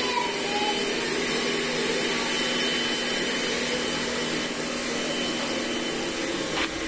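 Steady whirring hum from the SYM VF3i motorcycle with its temperature warning light on, typical of the engine idling with the radiator cooling fan running.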